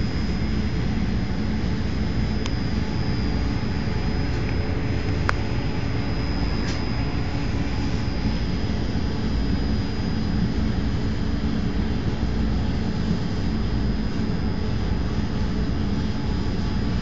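Train hauled by an FS E632 electric locomotive running steadily: an even, heavy rumble with a thin high whine held throughout. A few sharp clicks come in the first seven seconds, the loudest about five seconds in.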